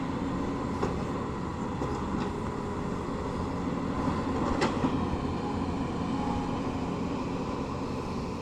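Tata Hitachi excavator's diesel engine running steadily, with a few short sharp clanks, the loudest about four and a half seconds in.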